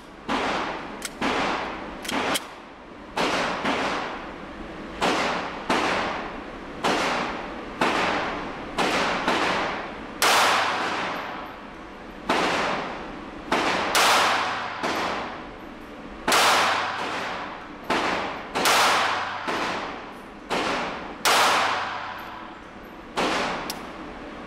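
A steady run of gunshots, roughly one or two a second, each ringing off the walls of an indoor range. Among them are five .380 ACP rounds from a Diamondback DB380 pocket pistol; the rest come from other shooters.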